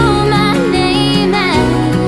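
Background pop song playing: a gliding sung melody over steady bass notes.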